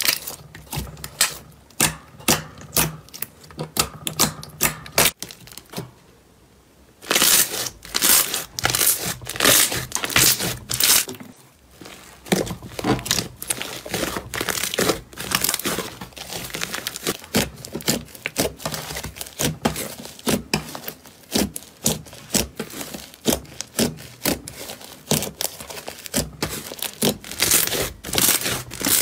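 Slime squished and pressed by hand: a dense run of sticky clicks, pops and crackles, with a short quiet break about six seconds in.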